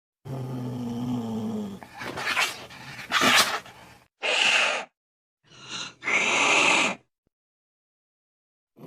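Angry domestic cat growling low and hissing, in several short clips cut together: a growl with hisses over the first four seconds, then two shorter hissing calls, each ending abruptly in dead silence.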